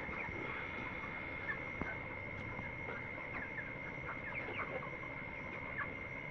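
A shed full of broiler chickens, about four weeks old, peeping and chirping in scattered short calls, over a steady high-pitched tone.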